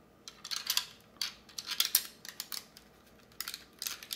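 Irregular small clicks and light knocks of hard 3D-printed plastic clock parts being handled and pushed together: a winding part being fitted into a toothed barrel gear.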